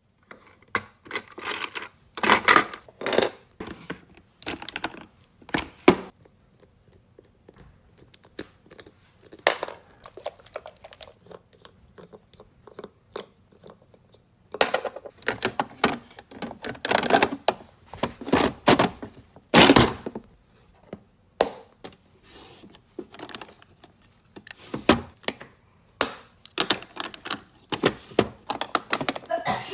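Cosmetics and their packaging handled close to the microphone: irregular clicks, taps and rustles, some loud and some faint, with quiet gaps between.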